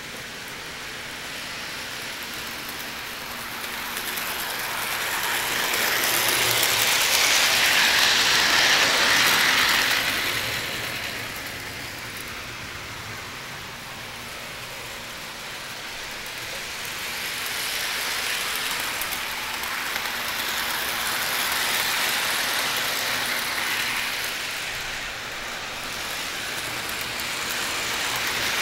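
O-scale model train running on the track: a steady mechanical clatter of wheels and motor that swells loudest about 8 seconds in as the train passes close, fades, then rises again around 20 seconds.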